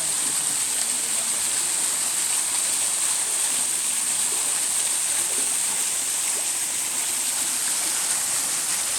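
Waterfall pouring steadily: an even, bright rush of falling water that holds the same level throughout.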